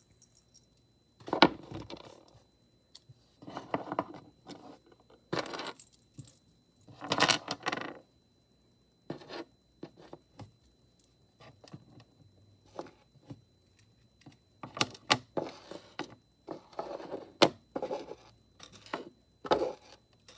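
Metal keychains jingling and clinking as they are handled and set down, in irregular bursts with scattered clicks.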